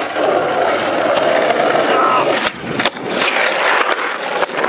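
Skateboard wheels rolling on a concrete skatepark surface, with two sharp board clacks about two and a half seconds in and another near the end.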